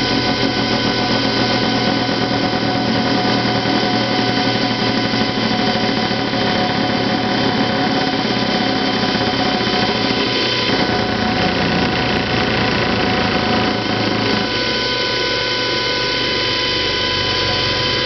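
Homemade waste-motor-oil centrifuge spinning, driven through a Ford power steering pump by an electric compressor motor: a steady machine whine made of many held tones. The centrifuge is coming down in speed after the pump pressure has been turned down.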